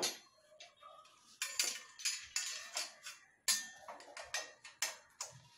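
Metal rods clinking and scraping against the perforated metal side panel of a kitchen rack as their ends are pushed at the holes, about a dozen irregular clicks and knocks. The rod is not yet going into its hole.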